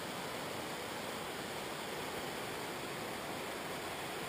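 Steady rushing of a muddy, flood-swollen river flowing down its debris-strewn channel.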